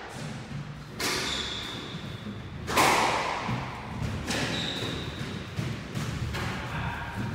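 Squash ball hits echoing around the court, a sharp smack every second or two, the loudest about three seconds in. Two brief high squeaks, like shoes on the wooden floor, come about a second in and about four and a half seconds in.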